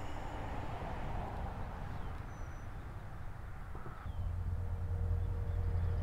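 Outdoor ambience by a pond: a steady low rumble that gets louder about four seconds in, with a few faint, short bird chirps.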